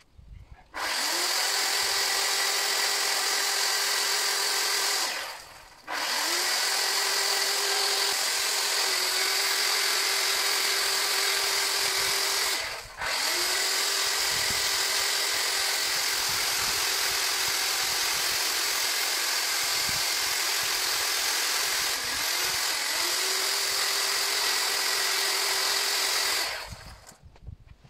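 Makita electric chainsaw carving wood. It runs in several long bursts, each spinning up with a short rising whine, holding a steady whine and then cutting off, with brief gaps between them.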